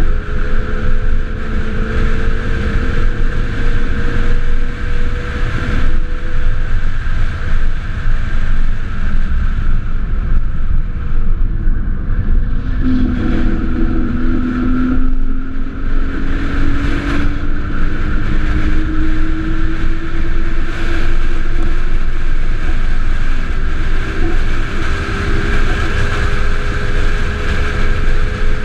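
Gato del Sol solar race car at speed: a steady electric motor whine over heavy road and wind rumble. About halfway through a lower whine starts and climbs steadily in pitch as the car picks up speed.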